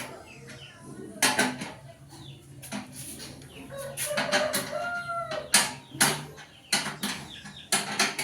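Irregular sharp metallic knocks and clanks, typical of sewing-machine stand parts being handled and fitted, the loudest about a second in and several more in the second half. A chicken clucks in the background, briefly about halfway through.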